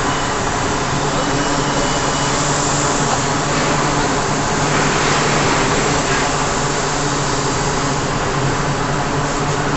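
Steady industrial machinery noise from an electric arc furnace installation, with a low electrical hum under it, just before the furnace is started.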